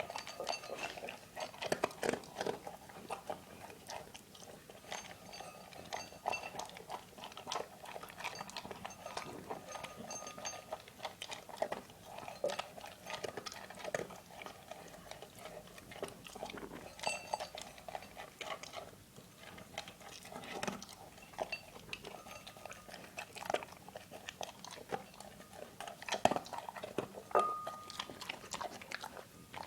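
Dog eating: irregular, rapid chewing and crunching of its food, with scattered sharp clicks and a brief ringing tone near the end.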